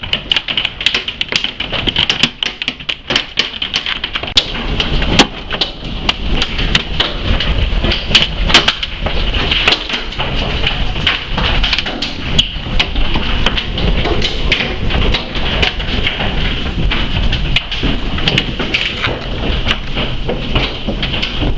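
Hailstones striking hard surfaces, a dense, irregular run of sharp cracks and knocks over the steady noise of heavy rain.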